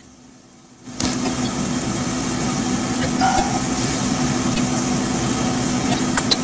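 A steady mechanical hum with background noise that starts suddenly about a second in, with two sharp clicks near the end.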